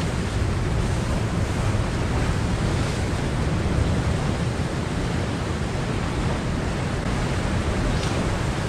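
Sea surf washing steadily on the shore, with a low rumble of wind on the microphone.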